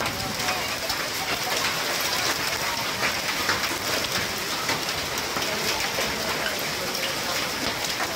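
Heavy rain pouring steadily onto a street, a dense hiss full of small sharp drop hits.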